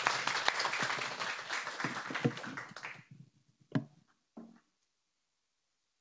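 Audience applauding, the clapping dying away about three seconds in, followed by two brief isolated sounds.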